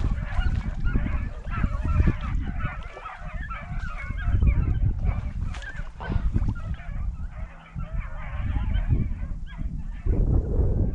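A pack of beagles baying in chorus, many voices overlapping in short yelps and bawls, the sound of hounds running a rabbit's scent trail. A low rumble runs underneath.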